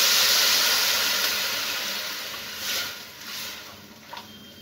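Water poured into a hot kadai of sautéed vegetables, hissing loudly at first, with the hiss fading steadily over a few seconds.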